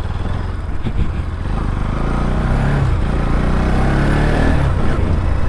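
Motorcycle engine pulling away and gaining speed, growing louder over the first couple of seconds. Its note rises and dips a few times in the middle as it is ridden on.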